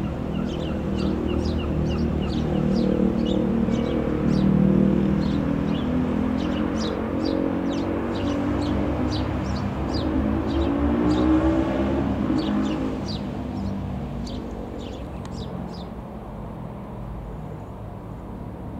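Robin R3000 light aircraft's single piston engine and propeller droning overhead, its pitch falling as it passes about two-thirds of the way through, then fading away. Small birds chirp repeatedly throughout.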